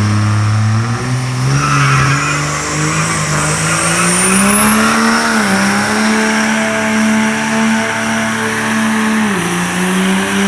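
Diesel pickup with a built Cummins inline-six doing a nitrous burnout: the engine is held at high revs with its pitch climbing over the first five seconds while the tires squeal, and a thin high whistle rises along with it. The engine pitch dips once about nine seconds in, then holds high again.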